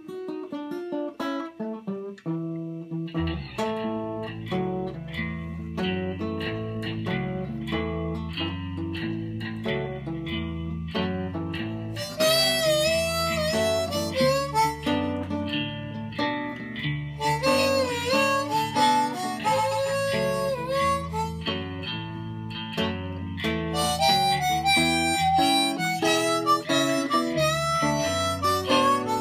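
Instrumental song intro on acoustic guitar, picked notes at first, with a low bass line coming in about three seconds in. A harmonica enters about twelve seconds in, playing phrases with bending notes over the guitar.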